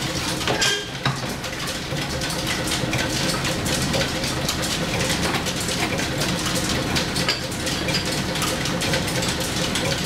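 Steam-driven overhead line shaft and flat belts running steadily, a constant mechanical hum with a dense patter of fine ticks.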